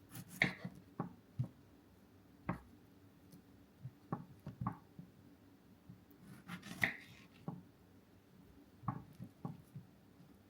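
A kitchen knife slicing fresh strawberries in half on a cutting board: soft, irregular taps as the blade meets the board, about a dozen over the stretch.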